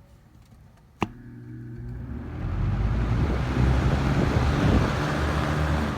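Toastmaster box fan switched on with a sharp click about a second in, its motor humming as the blades spin up and the rush of air swells to a steady loud whoosh.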